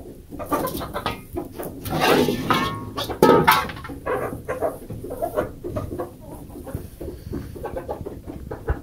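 Ducks and chickens calling in short calls, loudest about two to three seconds in, over water splashing from a hose into a metal bowl.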